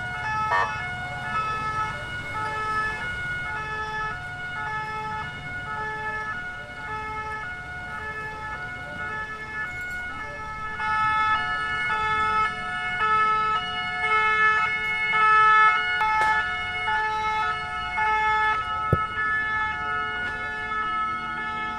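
French two-tone emergency vehicle sirens sounding continuously, each stepping back and forth between two pitches; from about eleven seconds in, more than one siren overlaps and it grows louder. A single sharp knock near the end.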